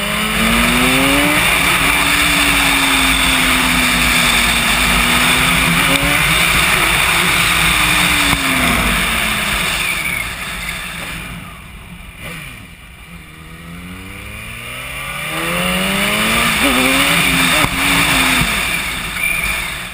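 Sport motorcycle engine heard from the bike, accelerating with rising pitch, then running steadily over heavy wind rush. About halfway through the throttle eases off and it goes quieter, then it accelerates again with rising pitch before slowing near the end.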